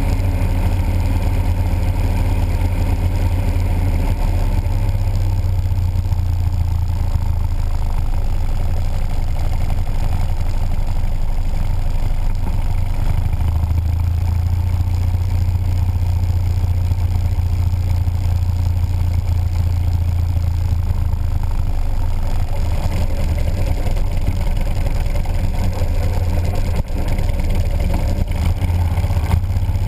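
Motorcycle engine running steadily while riding, a low steady rumble.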